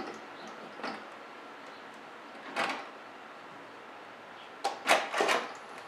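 Lid of a Power Pressure Cooker XL being set back on and twisted shut. There is a light click, a brief scrape a couple of seconds in, then a quick run of louder clunks near the end as the lid locks into place.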